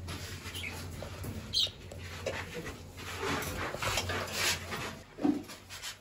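Caged pet budgerigars chirping and squawking in short, scattered calls, with a loud low knock about five seconds in; a steady low hum runs underneath.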